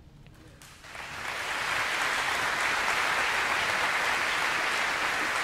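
Audience applause after a wind band piece: a brief hush, then clapping starts about a second in and holds steady.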